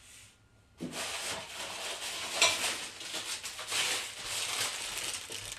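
A sheet of wrapping paper crinkling and rustling as it is unfolded and handled, starting about a second in.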